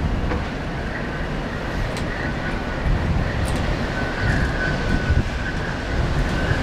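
Bora storm wind gusting hard, with heavy low rumbling buffeting and a high whistle that comes in after about a second and is strongest around four to five seconds in. A few sharp clicks or rattles sound through it.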